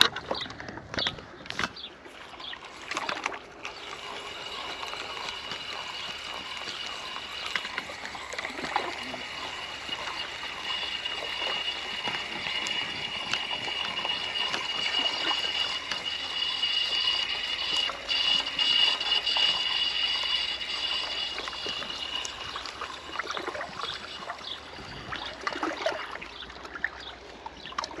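Small waves lapping and splashing at the water's edge, with a steady higher noise that swells toward the middle and fades again near the end.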